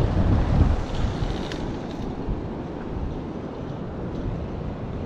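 Wind buffeting the camera microphone on an open pier, a low gusty rumble that is strongest in about the first second, then eases to a steadier rush.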